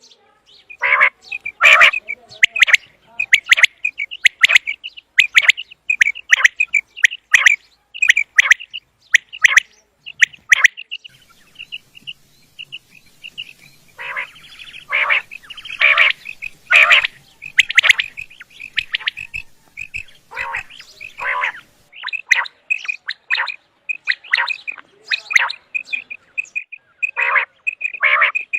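Common quail calling: a long run of short, sharp notes at about two a second, some loud and full, others thinner and higher, with a softer stretch about halfway through.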